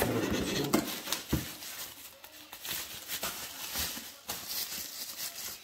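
Cardboard packaging being handled and a bubble-wrapped coilover strut lifted out: a loud cardboard scrape at the start and a few knocks, then softer rustling and crinkling of the plastic bubble wrap.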